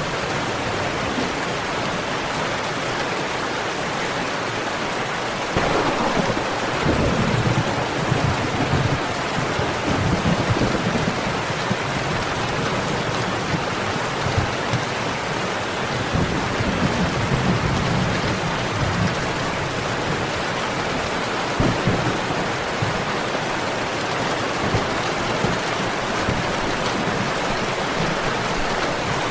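Steady heavy rain falling, with a roll of thunder breaking in about six seconds in and rumbling low for over ten seconds before it fades.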